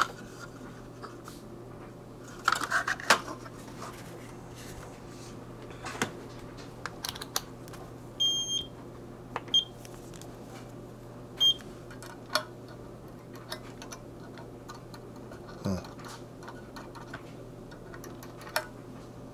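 A small circuit-board assembly is handled and set down on a workbench, rattling and knocking twice in the first few seconds, then scattered light clicks and taps. About eight to eleven seconds in come three short, high electronic beeps, with a steady low electrical hum underneath throughout.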